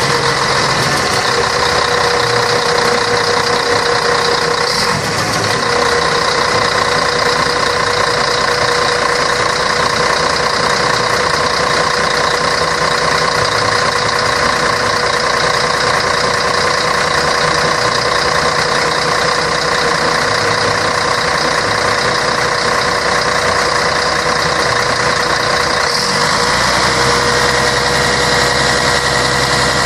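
Scania K113 bus's six-cylinder diesel engine running steadily, with a constant whine over the engine note; about 26 seconds in the sound shifts briefly and the whine settles slightly higher.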